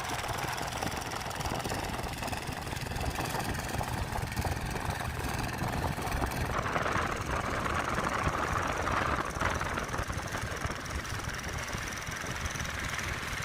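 Boat engine running steadily, with wind noise on the microphone and a brief louder rush of water or wind in the middle.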